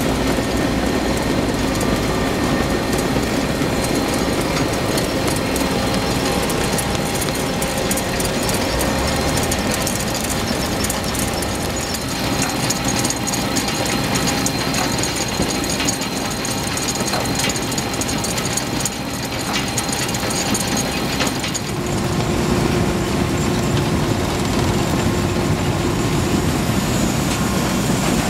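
Tractor pulling a potato harvester: the engine runs steadily under the continuous rattle and clatter of the harvester's chains and conveyors lifting potatoes. A new steady tone joins about two thirds of the way through.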